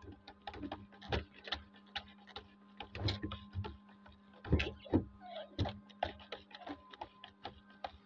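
Calf sucking milk from the rubber teat of a nipple feeding bucket: quick, irregular wet smacks and slurps, several a second, over a steady low hum.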